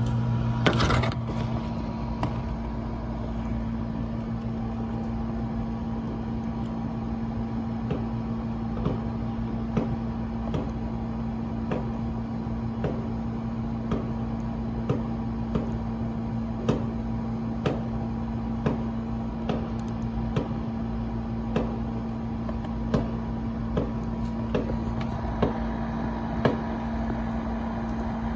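Distant fireworks and firecrackers popping, scattered irregularly every second or two, with a louder cluster about a second in, over a steady mechanical hum.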